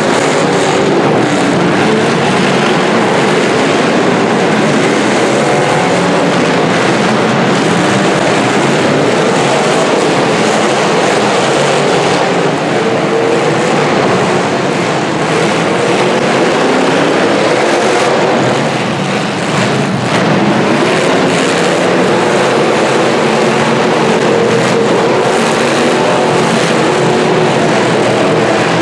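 Several demolition derby cars' engines running and revving hard together, a loud, continuous din whose pitch wavers up and down as the drivers rev.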